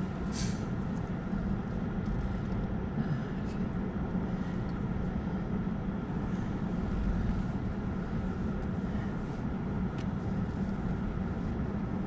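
Steady road and tyre noise with a low, constant hum inside the cabin of an electric car.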